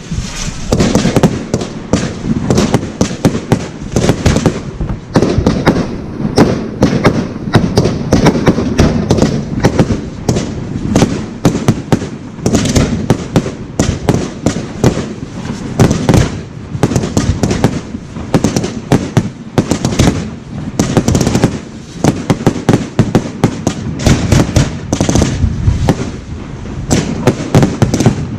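Professional fireworks display firing: rapid, overlapping bangs, several a second, with no pauses.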